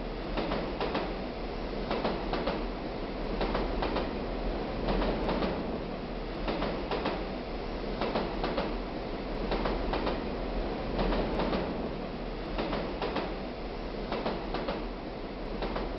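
A steady rumbling noise with pairs of sharp clicks recurring about every one and a half seconds, a rhythmic clatter like wheels over rail joints.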